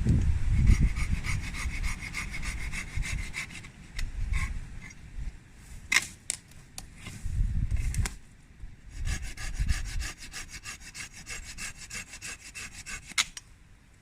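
Hand saw cutting through wood in quick back-and-forth strokes, in two bouts with a pause and a few knocks between, with wind buffeting the microphone.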